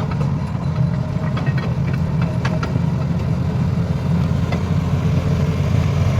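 Heavy vehicle's engine running steadily at low revs, a deep even rumble, with a few light clicks and rattles.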